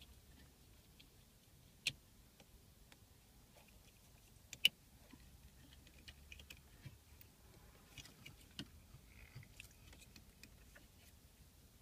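Plastic wiring-harness connectors and loose wires being handled and plugged together: two sharp clicks about 2 and 4.5 seconds in, then a run of lighter clicks and rustling.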